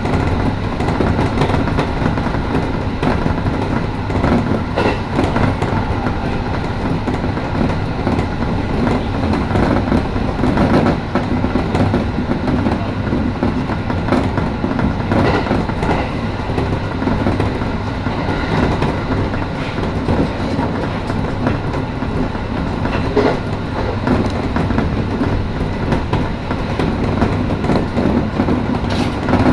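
Passenger train running along the line, heard from inside the front car: a steady rumble of wheels on rail, with scattered clicks from the track.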